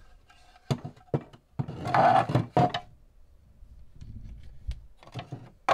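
3D-printed plastic excavator buckets being handled: a few sharp clicks and knocks, a louder scraping rub of plastic lasting about a second, then softer handling noise and a couple more clicks near the end.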